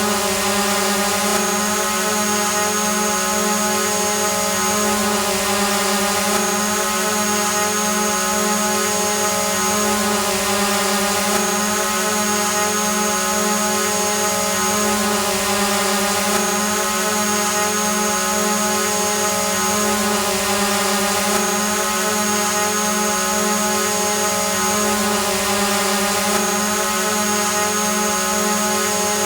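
Drone hovering: a steady propeller hum made of a strong low tone with many higher tones stacked above it. A thin high whine drops out and comes back every few seconds.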